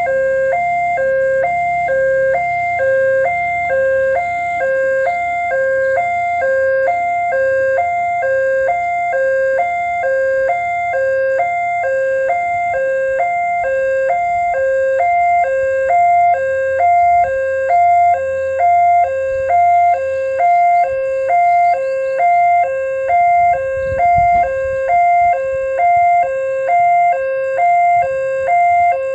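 Railway level crossing alarm ringing a fast two-tone ding-dong, its two pitches alternating quickly and evenly without a break. A low rumble runs underneath, with a brief low surge near the end.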